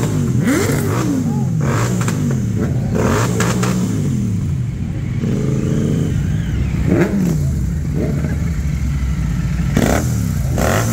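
Several superbike engines being revved together, their overlapping pitches climbing and dropping with repeated throttle blips.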